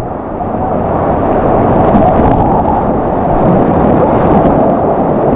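Loud, steady rush of river water in whitewater, mixed with wind buffeting the microphone.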